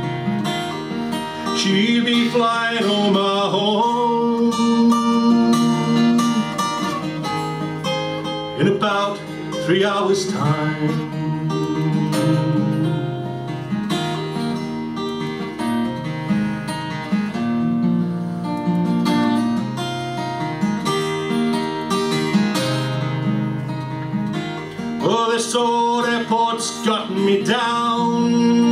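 Steel-string acoustic guitar played live, picking and strumming a steady folk chord accompaniment with short melodic runs.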